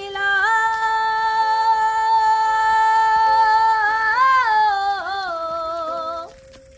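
A high singing voice holds one long note for about three and a half seconds, then wavers and dips in pitch before stopping near the end, with a faint steady tone beneath.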